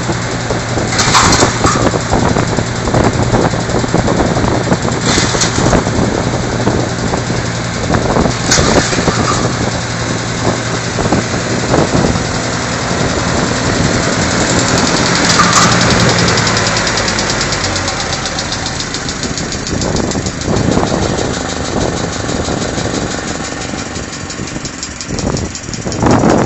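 Mini tractor engine driving a VX-62 branch chipper, running steadily with four short, sharp bursts of noise as branches are chipped. The engine note changes about two thirds of the way through.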